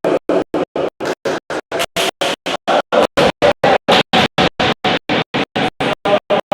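Music chopped into a rapid, even stutter: about five short bursts a second with silence between each.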